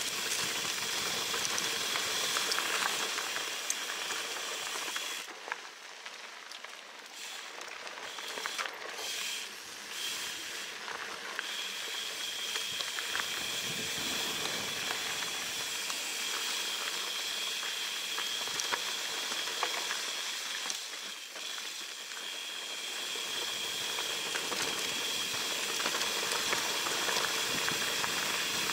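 Mountain bike rolling fast down dirt singletrack, heard from a handlebar-mounted camera: a steady hiss of tyre and wind noise, dropping somewhat quieter for a few seconds about a fifth of the way in.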